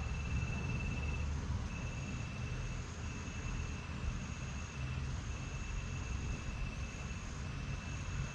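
Insects trilling in two steady high tones, each running in stretches of about a second with short breaks, over a constant low rumble.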